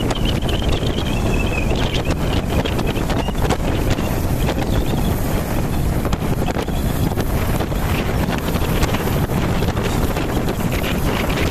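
Heavy wind buffeting a camera microphone on a moving motorcycle, over the steady running of a TVS Apache RTR 180 single-cylinder engine. A faint wavering whine sits over the noise for the first couple of seconds.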